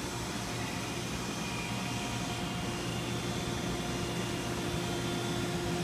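Steady factory background hum: a low drone and an even rush of air noise, with a couple of faint steady tones running through it.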